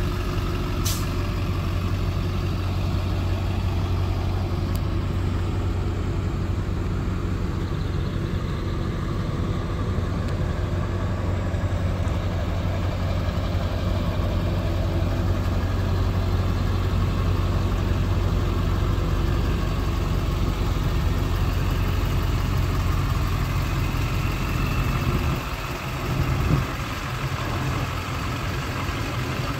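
2001 GMC Sierra 2500HD pickup's V8 engine idling steadily.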